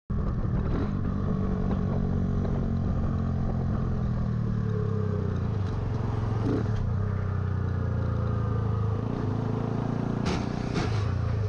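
Motorcycle engine running steadily at highway cruising speed, heard from an on-board camera, with a steady hiss over it. A few sharp clicks come about ten seconds in.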